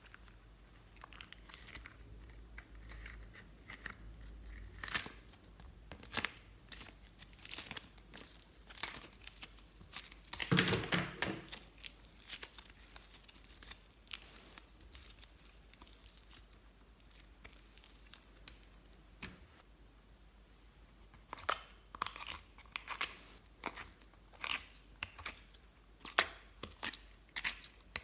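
Clear slime being kneaded and stretched by hand, with sticky crackling clicks and pops. A louder squelching burst comes about ten seconds in, and the clicks come thick and fast near the end.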